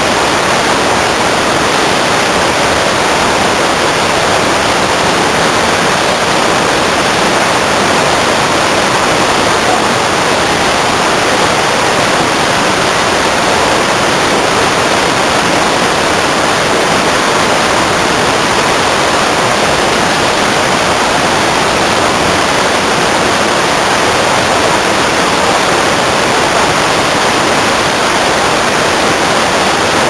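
White-water rapids rushing over boulders: a loud, steady, unbroken rush of water.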